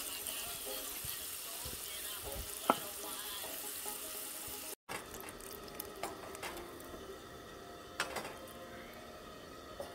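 Fish frying, a steady sizzling hiss, with one loud sharp click about three seconds in. Just before halfway the sizzle cuts off abruptly, and a quieter stretch with a few sharp clicks follows.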